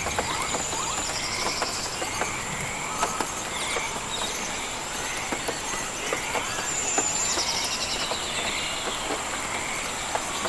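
Rain forest insect chorus: a steady high-pitched whine with short pulsed chirps repeating every second or so, over a soft hiss with scattered sharp ticks.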